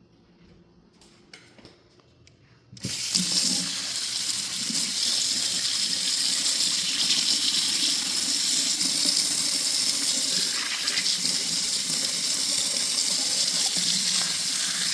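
A few faint handling clicks, then about three seconds in a kitchen tap is turned on and water runs steadily into the sink, rinsing a single-cup pour-over coffee filter.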